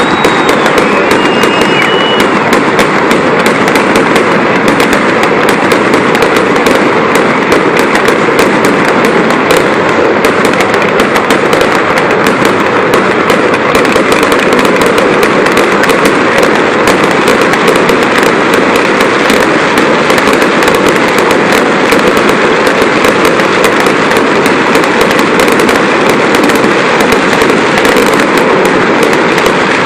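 Fireworks going off in a loud, dense, continuous barrage of rapid bangs and crackles with no breaks.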